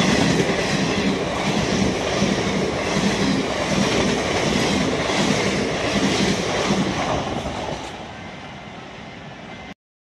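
Blue ICF passenger coaches rushing past at speed, their wheels clattering over the rails in a steady rhythm. The noise falls off about eight seconds in and then cuts off abruptly.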